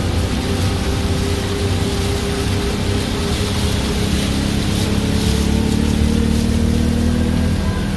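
A vehicle's engine running steadily as it drives through floodwater, with the wash of water under the tyres.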